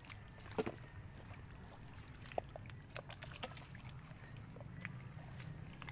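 Scattered wet clicks, pops and squelches of hands and rubber boots working in soft mangrove mud, over a low steady rumble.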